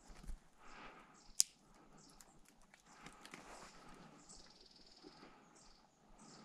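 Footsteps crunching through dry leaf litter and undergrowth, with one sharp snap about a second and a half in and a few short, high chirps in the second half.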